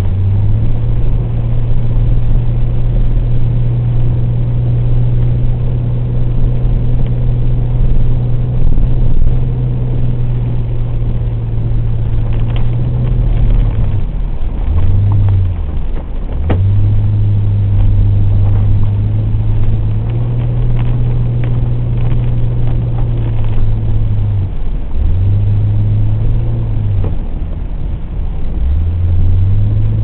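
Car engine heard from inside the cabin, running at a steady pull, then dropping off and climbing back several times, once about halfway through and twice near the end, as the car drives a wet winding road.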